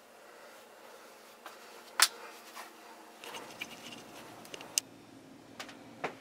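Faint room tone with a few sharp clicks and light knocks, the loudest about two seconds in.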